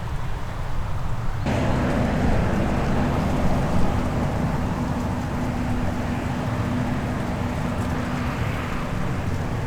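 Heavy farm machinery at work: a diesel engine running steadily. About a second and a half in, a louder rushing noise and a steady hum suddenly join it.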